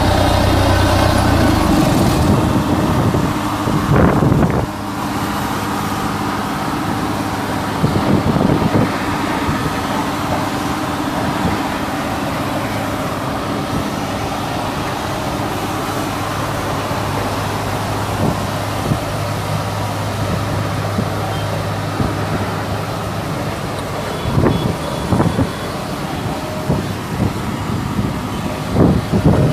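Road roller engine running steadily, with several short, louder rushes of noise over it.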